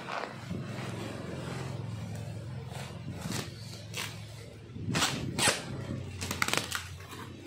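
Black plastic bubble-wrap courier bag rustling and crinkling in a series of short bursts as it is pulled off a cardboard box, loudest about five seconds in. A steady low hum runs underneath.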